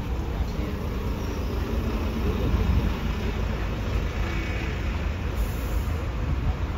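City road traffic: a steady rumble of cars, vans and buses running along a busy street.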